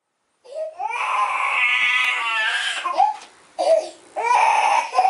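Infant crying: one long wail, then a run of shorter cries with short pauses between them from about three seconds in.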